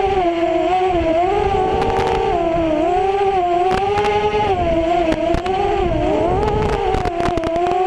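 FPV racing quadcopter's motors and propellers whining, the pitch rising and falling as the throttle changes through turns. Crackling clicks break in, thickest near the end, which the uploader puts down to a busted microphone.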